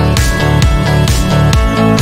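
Upbeat background music with a steady beat, about two beats a second.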